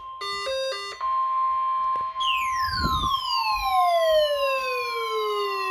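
NOAA Weather Radio's steady 1050 Hz warning alarm tone sounding, introduced by three short electronic beeps going low, high, low. From about two seconds in, a long tone with strong overtones glides steadily down in pitch over it, like a cartoon falling whistle.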